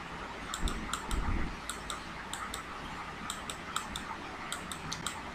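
Irregular light clicks and taps, several a second, of a stylus on a touchscreen as a word is handwritten, with a few soft low thumps in the first second and a half.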